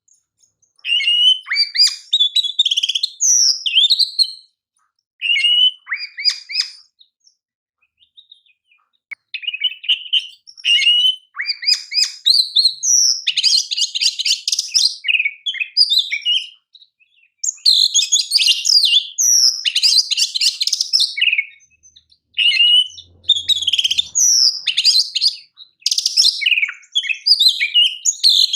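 Oriental magpie-robin (kacer) singing a champion-style song: phrases of varied whistles, fast chattering trills and rapid note runs, broken by short pauses.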